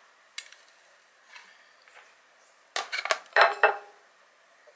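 A clear food-storage container and its lid handled and closed on a table: a few light taps, then a quick run of sharp clicks and knocks with a little ringing about three seconds in as the lid is pressed on.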